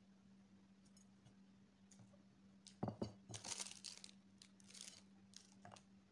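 Clear plastic wrapping crinkling and crumpling in bursts, after a couple of sharp knocks of dishes or cutlery a little before. A steady low hum runs underneath.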